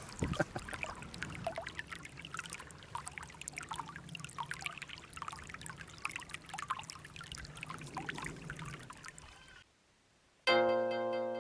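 Small stream babbling and trickling over stones, a continuous irregular water patter. It cuts off suddenly near the end, and after a moment of silence plucked harp-like music begins.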